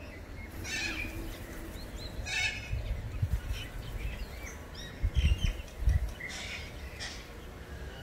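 Corellas calling: about three loud calls a few seconds apart, with smaller birds chirping in between. A few low thumps come about five to six seconds in.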